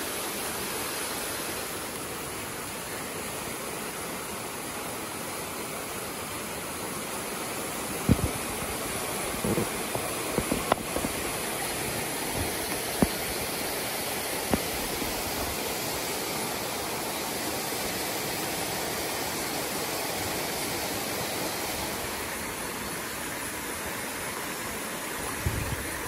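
Steady hiss with a handful of sharp pops and knocks, mostly in the middle and again near the end, from a wood campfire and bamboo skewers handled over it.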